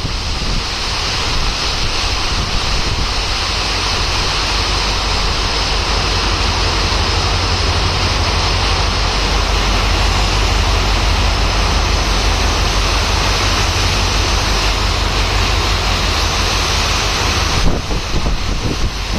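Heavy rain pouring down in a steady hiss, with wind buffeting the microphone. Under it runs a low, steady rumble from the smoking WDP-4 diesel locomotive's engine running.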